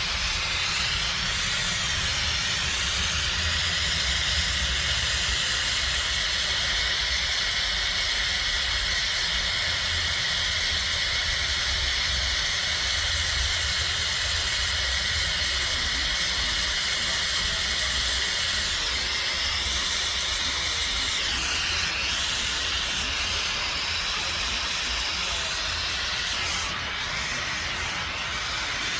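Brazing torch flame hissing steadily while the evaporator's high- and low-pressure refrigerant lines are brazed. The hiss changes tone a few times in the second half, over a steady low hum.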